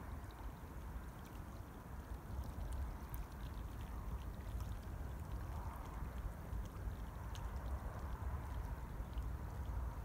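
Small wind-driven waves lapping at the edge of a loch, with wind rumbling low on the microphone.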